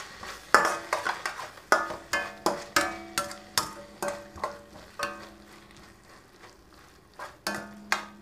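A stirring utensil knocking and scraping against a metal pan while onion-tomato masala is stirred. The pan rings briefly after each knock, and the strikes come irregularly, one or two a second, with a faint frying sizzle underneath. The knocking pauses around six seconds in and picks up again near the end.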